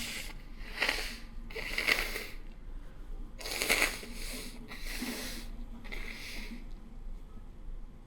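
A person sniffling and breathing noisily through the nose in the aftermath of a sneeze: about six short, hissy breaths at uneven intervals, stopping a little over six seconds in.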